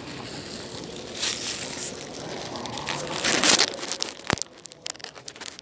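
Rustling, crackling handling noise on a phone's microphone, swelling twice, with one sharp click a little past four seconds in followed by a run of small clicks.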